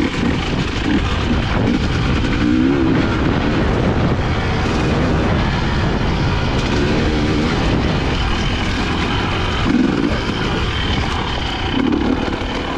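Husqvarna TE 250i two-stroke enduro motorcycle engine running under throttle as the bike is ridden over rough trail, its pitch rising and falling repeatedly as the rider opens and closes the throttle.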